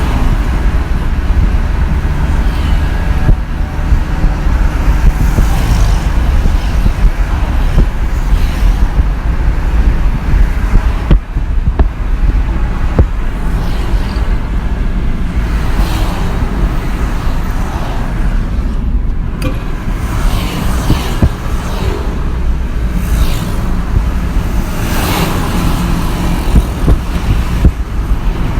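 Road traffic on a two-lane road: cars and motorbikes passing one after another in both directions, a steady low engine and tyre rumble with each vehicle's tyre hiss swelling and fading as it goes by.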